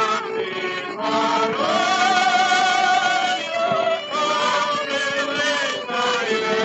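A 1930 Columbia 78 rpm record of a Ukrainian folk song playing: a vocal quartet sings in harmony with an orchestra, holding long notes with vibrato.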